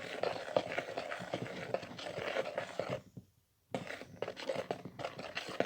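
Sticky slime mixture of shaving foam and activator being stirred in a bowl: a continuous wet crackling and scraping made of many small clicks, with a brief silent break a little past halfway.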